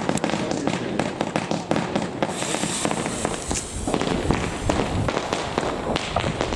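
Fireworks: a dense run of sharp cracks and pops, with a hiss about two seconds in.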